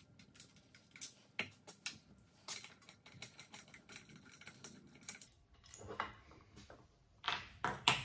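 Small metal parts clicking and clinking as the factory shifter of an Infiniti G-series manual transmission is unbolted and worked loose by hand. There is a steady scatter of light ticks, with a few louder clacks about six seconds in and again near the end.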